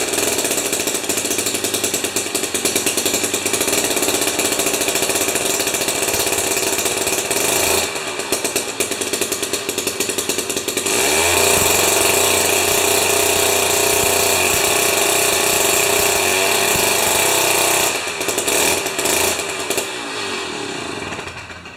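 Jiffy 30 ice auger's 3 hp Tecumseh two-stroke engine running loud at high revs, dropping to a lower speed about eight seconds in, revving back up to full speed about three seconds later, and dropping back again near the end. Its high-speed mixture screw is set just slightly rich, so it runs right at the top end.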